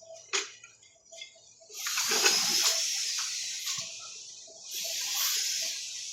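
Water rushing or splashing in two surges, the first about two seconds in and the second about five seconds in.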